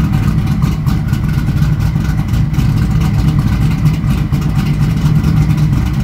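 1995 Pontiac Trans Am's LT1 V8, fitted with an aftermarket TPIS camshaft, idling steadily through its exhaust just after a cold start.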